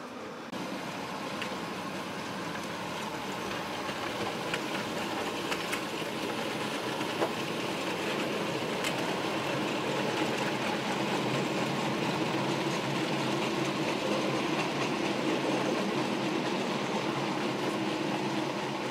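00-gauge model train running on the layout's track: a steady motor hum and wheel rumble with a few faint clicks, growing gradually louder.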